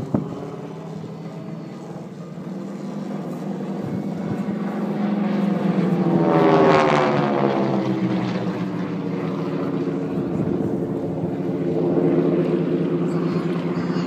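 Two North American T-6 radial-engined trainers flying formation aerobatics, their engines and propellers running with a hard rattle. The sound grows to its loudest as the pair passes overhead about halfway through, the pitch dropping as they pull away, then swells again near the end. A brief knock comes right at the start.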